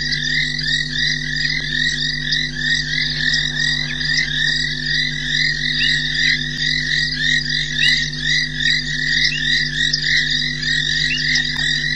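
A dense chorus of many frogs calling, short overlapping calls repeating several times a second, over a steady low hum.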